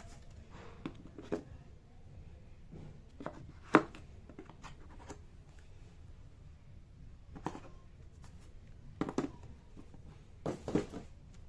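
Hands handling an iPad and its packaging: scattered light taps and knocks, the loudest a single sharp knock about a third of the way in, with a quick cluster of knocks near the end.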